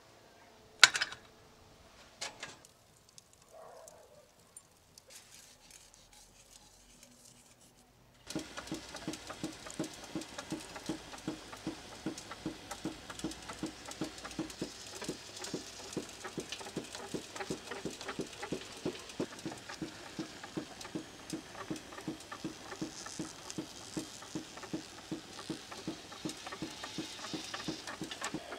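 A few sharp metal clinks, then, from about eight seconds in, a whole lamb turning on a rotisserie spit over hot charcoal: a steady run of evenly spaced clicks over a light crackle.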